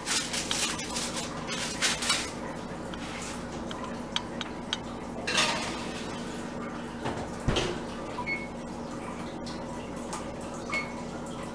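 Metal baking sheet clattering and knocking as it is put into an electric oven, with a heavy thud about halfway through, likely the oven door closing. Near the end come two short, high electronic beeps from the oven's keypad as it is set.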